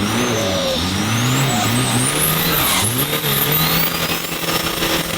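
An engine running, its pitch rising and falling again and again over a steady hiss.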